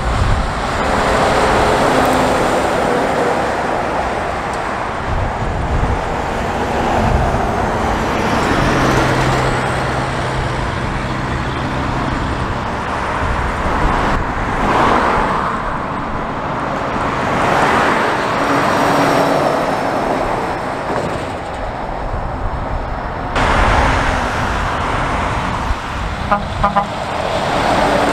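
Heavy semi-trailer trucks towing race car transporter trailers driving past on the road, their engine and tyre noise swelling and fading with each pass, amid other traffic.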